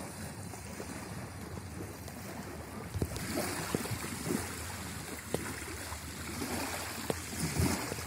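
Wind buffeting the microphone with a low rumble, over small waves lapping on a sandy river bank. The hiss grows stronger about three seconds in, with a few scattered clicks.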